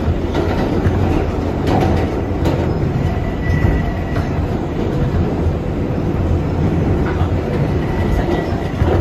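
R188 subway train running between stations: a steady rumble of wheels on rail, with a few brief clicks from rail joints.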